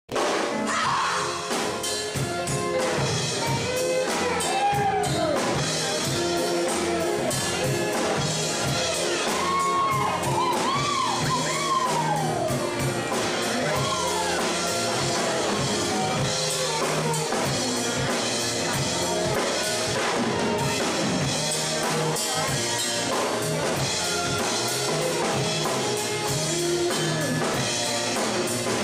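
Live band playing an upbeat number, with drum kit, electric guitars and keyboard under a group of singers whose voices swoop up and down.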